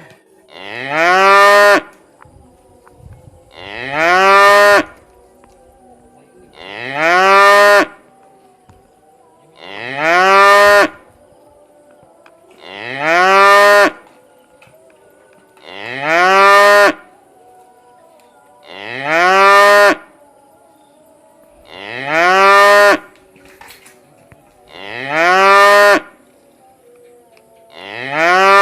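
A cow mooing again and again: ten alike calls at an even pace of about one every three seconds. Each call lasts about a second and rises in pitch at its start.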